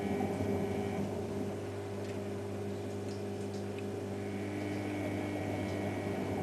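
Washing machine running with a steady electrical hum of several fixed tones, one higher tone dropping out about a second in and returning near the end.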